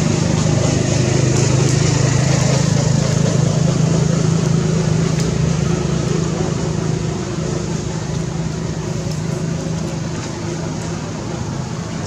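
A motor engine running steadily, with a low hum, growing quieter from about seven seconds in.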